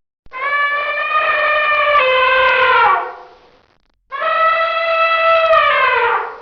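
Elephant trumpeting: two long, brassy calls of about two to three seconds each, held at a steady pitch and then sliding down at the end, with a gap of about a second between them.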